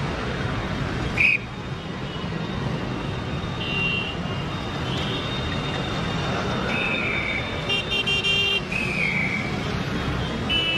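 Steady road traffic running, with vehicle horns honking in short toots several times over it; the loudest is about a second in.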